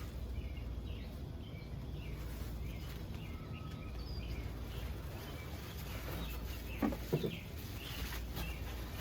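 Birds chirping over and over amid steady outdoor background noise, with a couple of short sharp handling noises about seven seconds in.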